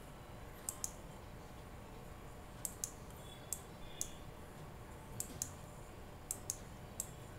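Faint sharp clicks of a computer mouse button, mostly in close pairs, coming about once a second.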